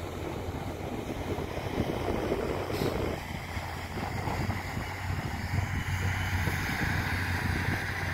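Dump truck's diesel engine running steadily under load as its hydraulic hoist holds the bed up to tip a load of soil, a constant low drone that grows a little stronger about halfway through, with wind rumbling on the microphone.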